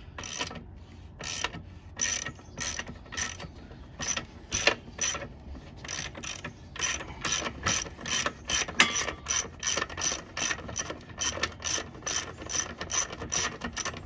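Socket ratchet wrench clicking in a steady series, about three clicks a second, as it backs off the motorcycle's rear axle nut, which has just been broken loose.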